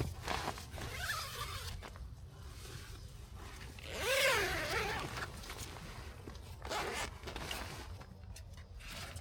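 A zipper being pulled in several short strokes, the longest and loudest stroke about four seconds in.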